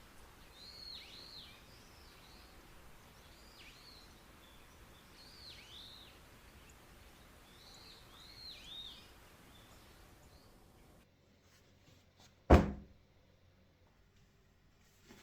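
A bird gives short down-slurred calls again and again over a steady outdoor hiss. About eleven seconds in, the outdoor sound cuts to a quiet room, and a single loud thud follows a second and a half later.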